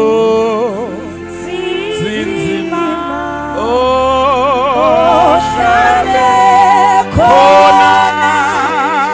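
Gospel singing: long held notes with a wide vibrato, several parts at once, over a sustained accompaniment.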